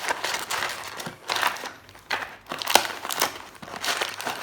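Plastic wrapping on a booster box crinkling and tearing as it is opened, with irregular sharp crackles.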